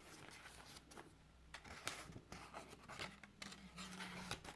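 Faint rustling and scattered light taps of paper and card as journal pages and tags are handled.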